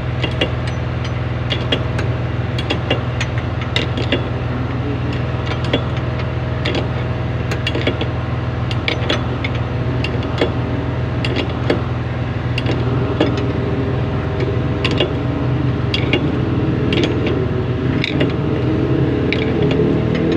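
A heavy engine idling steadily, with frequent sharp metallic clicks and taps of spanners working the shock absorber's mounting bolts. Near the end a second, rising engine note builds in.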